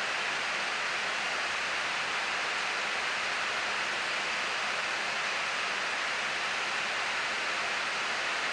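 Steady rushing hiss of an Airbus A340-600 flight deck in cruise at altitude, the even noise of airflow and air systems around the cockpit.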